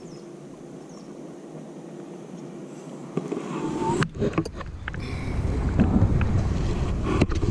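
Faint outdoor hiss with a few small clicks. Then, from about five seconds in, a low rumble of wind on the microphone, with scattered handling knocks.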